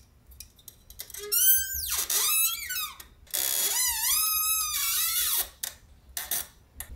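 Microphone boom arm squeaking as it is moved by hand: two long squeaks that waver up and down in pitch, the first about a second and a half long and the second about two seconds, with a few light clicks before and after. It is the terrible squeak from inside a worn budget boom arm whose mostly plastic parts have failed.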